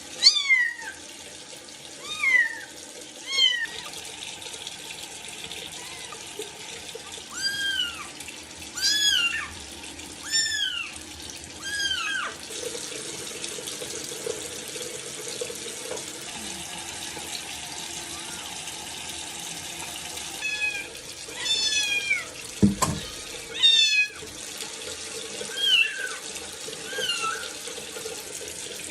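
Kittens meowing in repeated short, high, rising-and-falling cries during their first bath, over the steady hiss of a running water tap. A single knock sounds about two-thirds of the way through.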